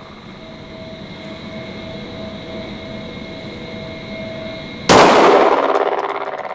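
A single 9×19mm Glock 17 pistol shot, fired one-handed, about five seconds in over a steady hum. The crack rings on for about a second and a half in the indoor range.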